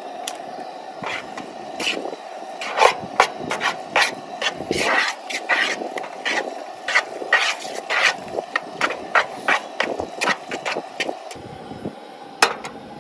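A cooking utensil scraping and knocking against a pan as ground meat and water are stirred together, in quick irregular clicks and clacks, with a steady hum underneath.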